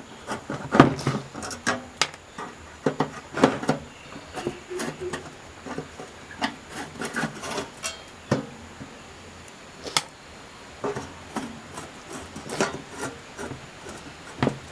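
Screws being unscrewed from an LED flasher light's housing, with the parts handled: irregular clicks, light knocks and short scraping sounds.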